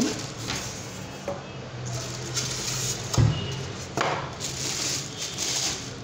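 Packing being handled: plastic wrapping rustling and polystyrene foam inserts being pulled from the box around a new vacuum pump, with a knock about three seconds in and another about a second later.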